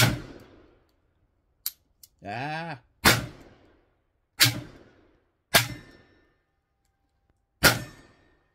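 Belgian 11 mm pinfire revolver firing five shots of hand-loaded pinfire cartridges, spaced one to two seconds apart, each with a short echoing tail. Between the first and second shots there is only a light click instead of a report, a dud round.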